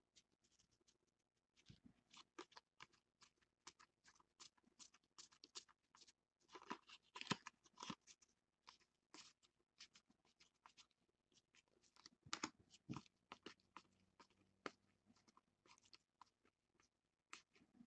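Faint flicks and rustles of a stack of cardboard trading cards being leafed through and slid from hand to hand, quick irregular clicks with busier runs around a third of the way in and again past the middle.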